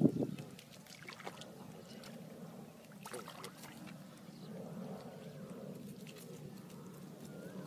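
Hands working in muddy water at a pond's edge, giving a loud splash right at the start, then a few faint splashes and squelches over a steady low rumble.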